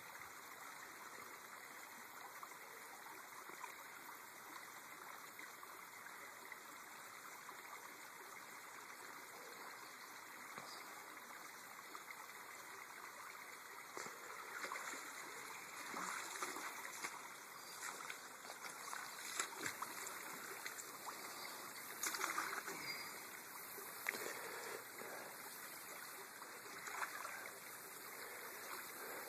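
Shallow river current running over rocks: a faint, steady rush of water. From about halfway through come irregular louder splashes and knocks.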